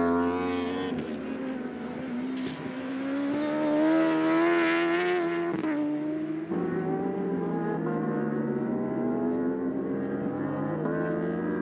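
Racing superbike engines at high revs on track. The pitch climbs steadily for several seconds, then the sound cuts abruptly about six seconds in to an engine at slowly falling revs.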